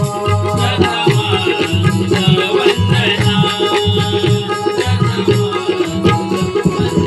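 Instrumental interlude of a Marathi Konkan devotional song in the Sangameshwari style: a hand drum plays a steady repeating beat under sustained melody notes.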